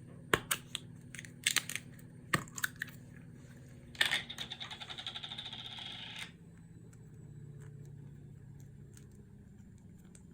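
Hand handling of slime-making materials: a string of sharp clicks and crinkles, then about two seconds of fast, even rattling of small hard pieces that cuts off suddenly.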